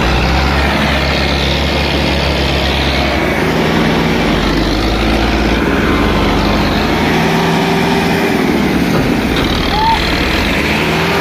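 Diesel tractor engine running steadily near idle close by, its low note shifting a few times.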